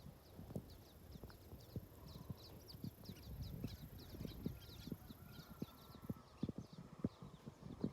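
Irregular soft knocks and taps, with faint high chirping throughout.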